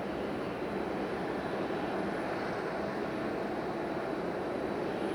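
Jet engines of a Boeing 737-800 airliner running with a steady, even noise.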